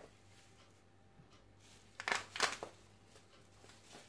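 Light handling noise while seasoning a bowl of minced chicken: a brief cluster of short clicks and rustles about two seconds in, otherwise quiet.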